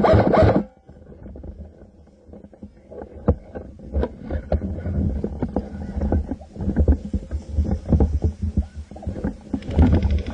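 Handling noise picked up by a camera mounted on an airsoft rifle: irregular knocks, rustling and a low rumble as the rifle is carried and moved. A louder, denser burst of noise cuts off about half a second in, and another starts near the end.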